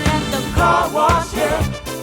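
Funk-soul background music with a steady beat and a singing voice.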